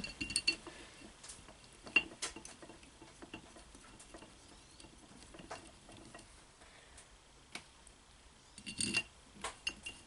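Light, scattered metal clicks and taps of a screwdriver and small screws being fitted back into a throttle-body injection unit, with a short cluster of clicks about nine seconds in.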